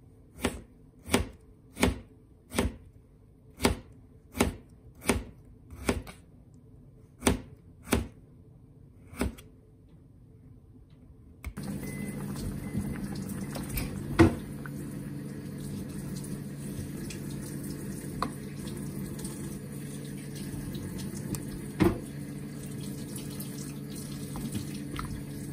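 Kitchen knife slicing a vegetable on a cutting board: about eleven crisp chops, roughly one every three-quarters of a second, for the first ten seconds. Then miso soup boils in a pot with a steady bubbling and a low hum, and a ladle knocks against the pot twice.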